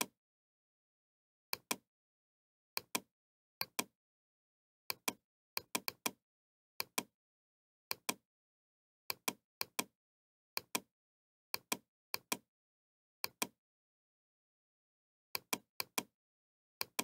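Computer mouse button clicks, each a quick press-and-release pair, about twenty in an irregular run with silence between them.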